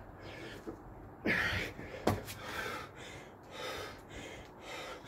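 A man breathing hard and fast from the exertion of burpees, with loud puffed breaths and one sharp knock about two seconds in.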